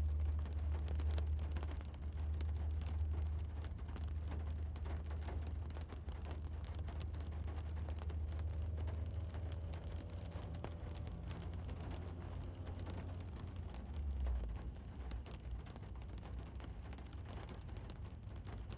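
Light rain pattering on a parked car's roof and glass, heard from inside the cabin, over a low rumble of distant traffic. The sound eases down gradually toward the end.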